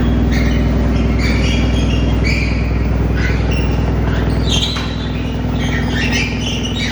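Large mobile wood chipper running with a steady low engine hum, with short, high, falling squeals repeating over it every second or so. About four and a half seconds in, the low hum drops a little.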